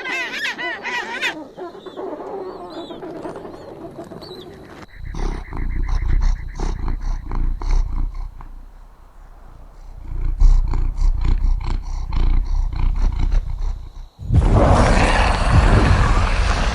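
A large animal growling in low, rumbling pulses, after a few cawing bird calls at the start; near the end a loud rushing noise cuts in suddenly.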